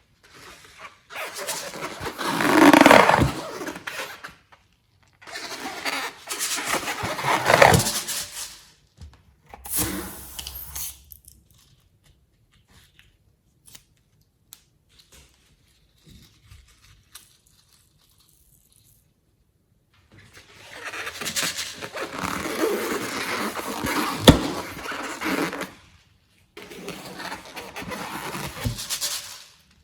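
Slime being worked by hand in several bursts of a few seconds each, a noisy squishing and scraping with a long pause in the middle. There is one sharp snap about 24 seconds in.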